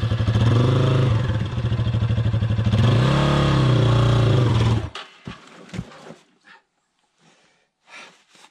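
Yamaha XT250's single-cylinder four-stroke engine revving under load as the motorcycle climbs a rock ledge. About five seconds in it cuts out suddenly as the engine stalls, followed by a few faint knocks and scrapes of the bike and boots against rock.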